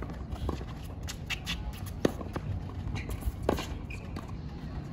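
Tennis rally on a hard court: sharp racket strikes on the ball about a second and a half apart, with lighter knocks from ball bounces and players' footsteps between them.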